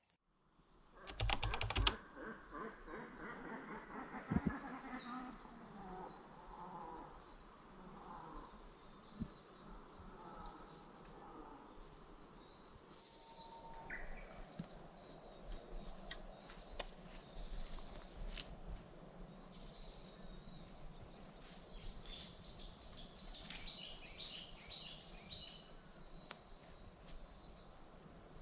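Outdoor lakeside forest ambience: small birds singing in short repeated chirping phrases over a steady high insect hum, with a brief loud clatter about a second in.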